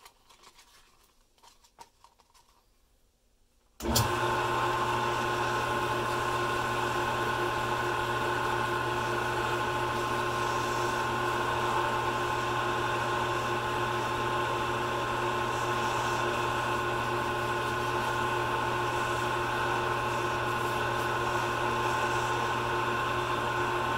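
A few seconds of near quiet, then just under four seconds in a wood lathe's motor is switched on and runs at a steady speed. It makes an even hum with several steady tones while the acrylic pen blank spins for micro-mesh sanding.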